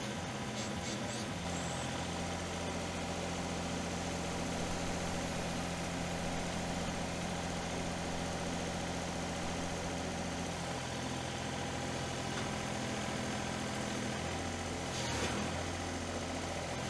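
Mini excavator's diesel engine running steadily, its note shifting about ten seconds in, with two short noisy bursts near the end.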